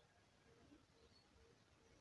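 Near silence, with faint distant bird chirps.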